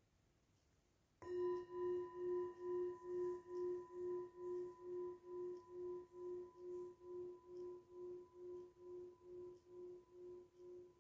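A metal singing bowl struck once about a second in, ringing with a steady low tone and higher overtones. The ring pulses about two and a half times a second as it slowly fades.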